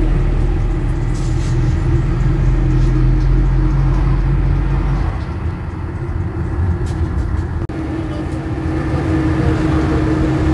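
Minibus cabin noise while driving: a steady engine drone with road and tyre noise. The deep low rumble eases off about halfway through, and the sound breaks off for an instant about three-quarters of the way in.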